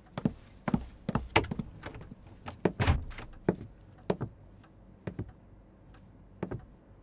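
A series of irregular thuds and knocks, like hard-soled footsteps and a door, the heaviest about three seconds in.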